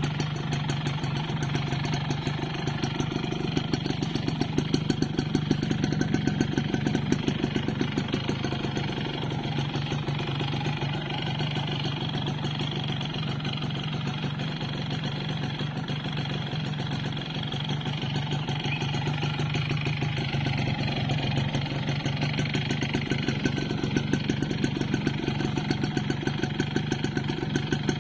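Yamaha Force 1 two-stroke motorcycle engine idling steadily with a fast, even rattle, which the owner takes for piston slap.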